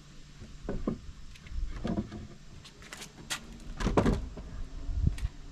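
A series of irregular knocks and clunks over a low rumble.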